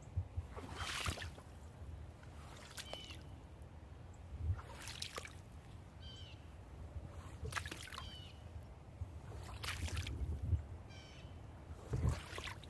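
Footsteps rustling on the ground every two to three seconds, with a bird calling short runs of chirps between them, over the low, steady rumble of a creek.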